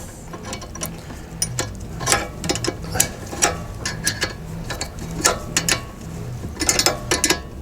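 Ratchet wrench clicking in uneven runs while tightening a brake caliper bolt.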